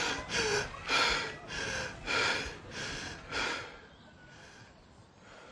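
A person breathing hard in quick, heavy gasps, about seven breaths at an even pace, which stop about four seconds in, leaving faint background noise.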